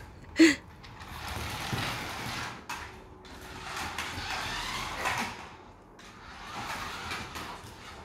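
Small remote-control toy car driving across a tiled floor, its electric motor and wheels whirring in three bursts of a second or two each.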